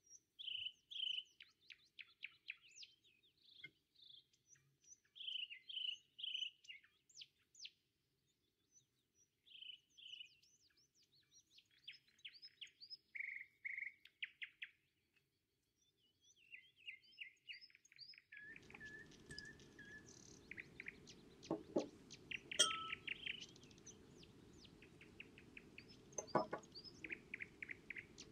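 Small songbirds chirping and trilling in quick, varied phrases throughout. In the second half a low steady hum comes in, with a few sharp clinks.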